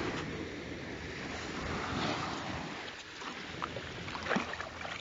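Small waves surging and washing back over a shingle beach, with wind on the microphone. A few short clicks come about three to four seconds in.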